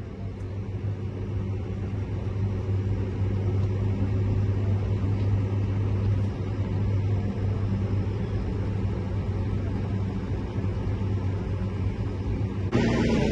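Tractor engine running with a steady low drone, heard from inside the cab, growing louder over the first few seconds as the tractor picks up pace. Near the end the sound switches abruptly to a louder, fuller engine sound.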